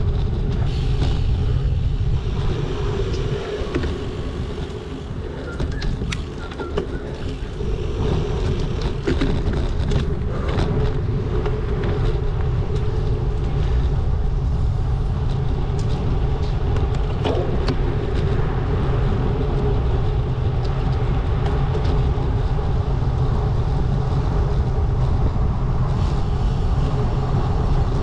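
Steady rush of wind and road noise on a cyclist's camera while riding, with a few sharp knocks. It eases for a few seconds a few seconds in.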